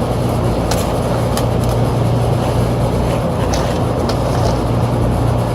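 Old Lennox air-conditioning condensing unit running with a steady low hum while its condenser fan motor is not turning, with a few light clicks on top.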